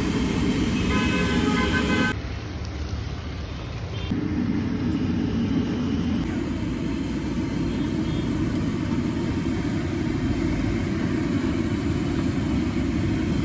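Busy street traffic with a steady low rumble, and a vehicle horn tooting about a second in.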